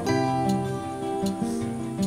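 Background music led by acoustic guitar, with sustained notes that change every half second or so.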